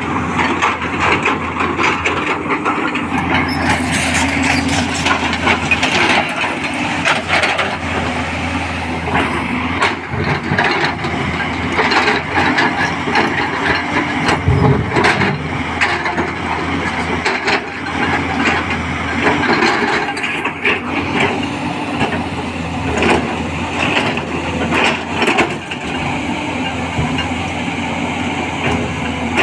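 210LC crawler excavator at work: its diesel engine runs steadily under an irregular stream of crunching, scraping and sharp cracks.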